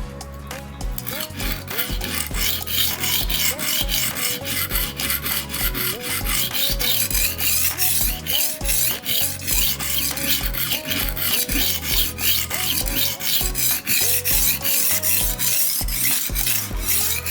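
HORL rolling knife sharpener's abrasive disc rolled back and forth along the tip of a knife blade, a continuous scratchy rasping of steel on abrasive that starts about a second in and stops just before the end.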